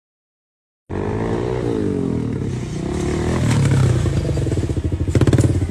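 Suzuki sport motorcycle engine revving while the bike is held up in a wheelie, its pitch rising and falling. It starts suddenly about a second in, and near the end it breaks into fast, uneven pulsing.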